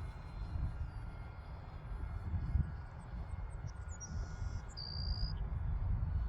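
Motor of a radio-controlled glider running under power aloft, a faint steady drone against wind rumble on the microphone. A few short high chirps and a brief high beep come about four to five seconds in.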